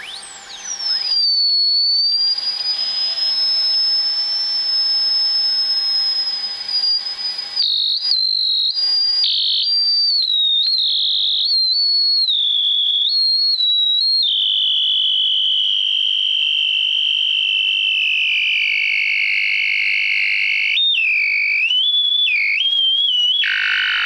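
Old Macintosh's sound circuit putting out a loud, high-pitched electronic whistle, caused by dead capacitors on the logic board. The tone glides down at first and holds, then jumps up and down in steps and sinks slowly lower as a finger presses on the capacitors, jumping about again near the end.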